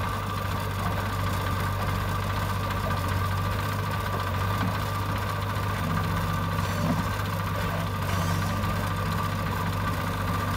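Diesel engines running steadily at an even pace: a New Holland 3030 tractor standing with its trolley and a JCB backhoe loader at work digging sand.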